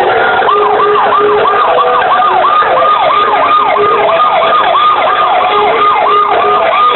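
A siren in a fast yelp: a falling wail repeated about three times a second, starting about half a second in and cutting off suddenly near the end.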